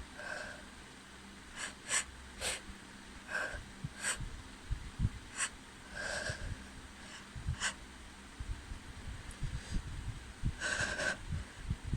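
A person's short nasal sniffs and breaths, an allergic reaction to a cat, coming every few seconds over an electric fan's steady hum, with scattered sharp clicks.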